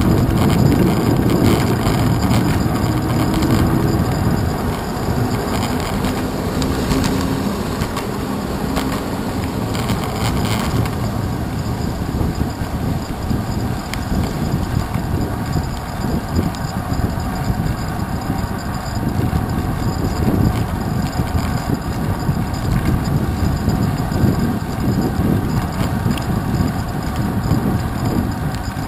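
A bicycle riding on wet city pavement, heard from a handlebar mount: a steady rumble of wind and tyres with frequent small knocks and rattles from bumps in the road. A car engine is heard alongside in the first few seconds.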